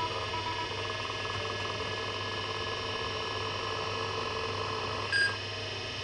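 Old Seagate ST-251 MFM hard drive spinning in a 286 PC, a steady whine of several fixed tones over a low hum. A single short beep sounds about five seconds in, as the BIOS finishes its memory count.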